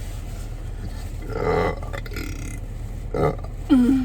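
A woman burping: a long rough burp about a second in, a short one around three seconds, and a low voiced one falling in pitch near the end, over a steady low hum inside a car.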